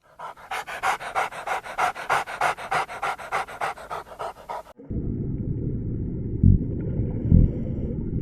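Dog panting rapidly, about five quick breaths a second, for roughly four and a half seconds. Then it cuts to a steady low rumble with two loud thumps.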